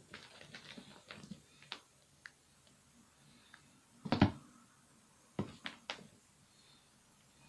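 A cat pouncing and scrambling on a carpet: scattered soft scuffs and knocks of paws, with one louder thump about four seconds in and a few quick knocks a second or so later.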